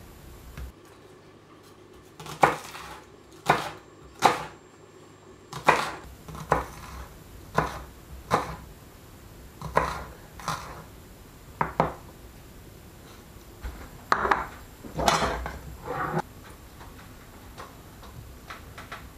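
Large kitchen knife chopping onion on a bamboo cutting board: separate sharp knocks of the blade on the wood, roughly one a second, with a quicker cluster of knocks and scrapes about three-quarters of the way through.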